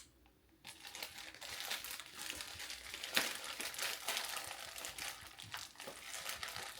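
Packaging being crinkled and pulled at by hand while a package is unwrapped: a dense run of small crackles that starts under a second in, with one sharper snap about three seconds in.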